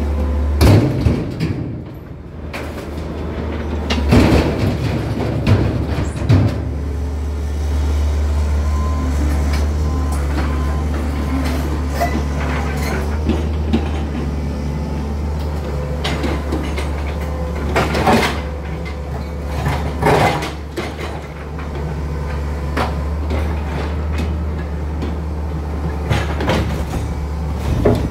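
Hitachi excavator's diesel engine running with a steady low drone while it demolishes and moves rubble. Repeated crashes and clatters of bricks and concrete blocks being grabbed and dumped, loudest around 4 to 6 s and 18 to 20 s.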